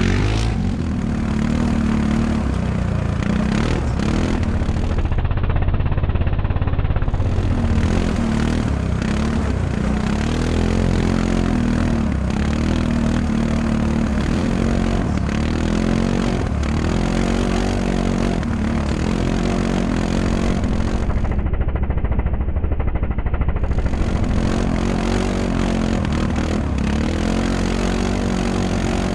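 Segway Snarler 570 ATV engine running hard under way, its pitch rising and falling as the rider accelerates and lets off the throttle.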